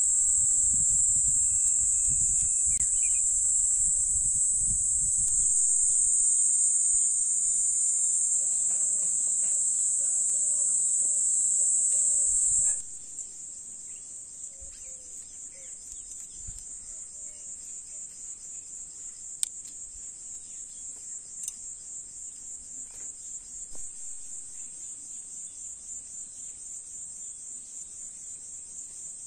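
A high-pitched insect chorus, loud and steady, drops abruptly about thirteen seconds in to a quieter trill that pulses rapidly. A low rumble runs under the first few seconds.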